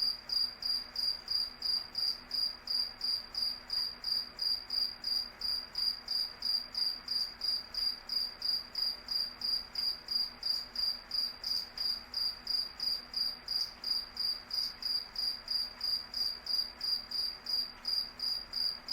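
Crickets chirping in a steady, even rhythm of about three high-pitched chirps a second.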